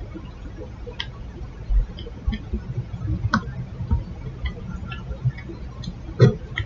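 Scattered small clicks and light taps from handling wires and a soldering iron while heat-shrink tubing is heated, with a sharper knock about six seconds in.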